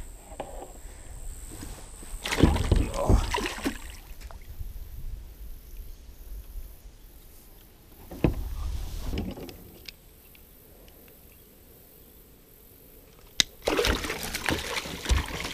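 A freshly caught flathead thrashing in and beside a plastic kayak while it is handled with lip grips: water splashing and sloshing with knocks on the hull, in three bursts, about two seconds in, about eight seconds in, and near the end.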